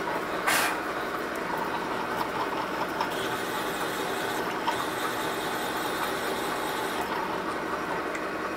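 Drill press running with a freshly sharpened counterbore cutting dry into 1018 steel, the spindle fed down into the cut and backed off to break the chip; a steady motor hum, with a brief sharp noise about half a second in.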